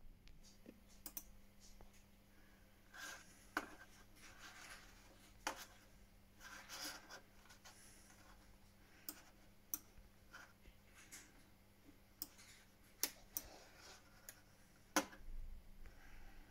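Faint handling and desk noise in a small room: scattered sharp clicks, the loudest near the end, and a few brief rubbing scrapes, over a faint steady hum.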